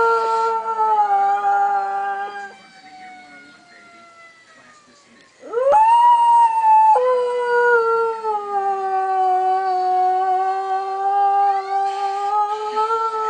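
Dog howling, set off by fire truck sirens. It gives two long howls: the first trails off about two and a half seconds in, and after a short lull a second howl rises sharply and is held, wavering slightly, for about seven seconds.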